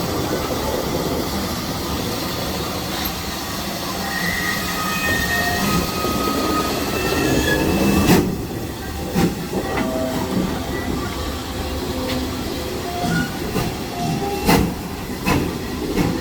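Heritage railway train moving slowly, rumbling along with short squeals from the wheels on the track. There are a few sharp knocks, the loudest about eight seconds in and two more near the end.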